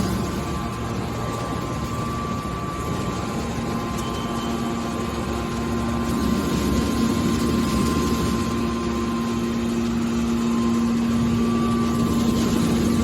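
Hydraulic baler's power unit running with a steady, even hum, getting slightly louder about halfway through.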